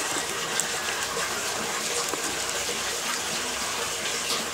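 A steady rushing hiss, with faint short clicks of a domestic cat eating from a small bowl close by.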